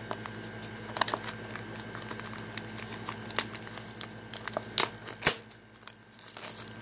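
A small cardboard toy box being worked open, then a clear plastic packet crinkling in the hands: irregular crackles and clicks, the sharpest two about five seconds in.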